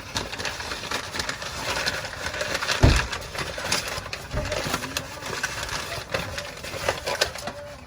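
Clicks, scrapes and knocks from handling tools and a drain pan under a truck, with a heavy thump about three seconds in and a lighter one a second and a half later. A dove coos faintly in the background.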